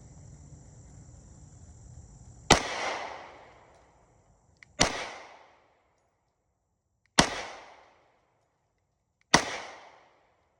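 Four shots from a 10mm semi-automatic pistol, fired slowly at roughly two-second intervals. Each is a sharp crack followed by a short echoing tail: aimed fire at a target group.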